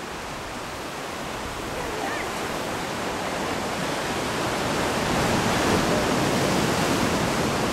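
Ocean surf breaking and washing over a rocky lava shoreline as a steady rushing noise, swelling louder about halfway through.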